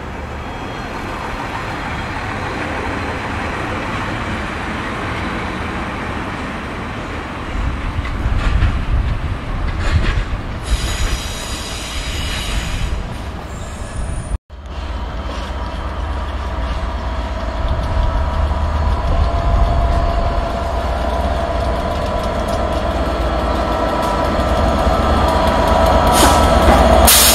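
Class 67 diesel-electric locomotive hauling passenger coaches over curved pointwork: a steady engine and rail rumble with high wheel squeal on the curves around the middle, then growing louder as the locomotive draws level near the end. A brief dropout partway through.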